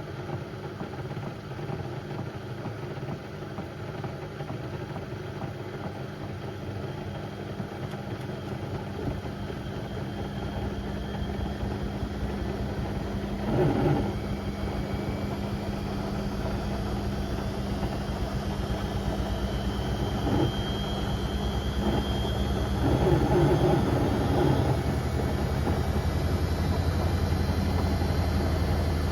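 Beko WM74135 washing machine running with a load of door mats: a steady motor and drum hum that grows gradually louder, with a faint high whine partway through.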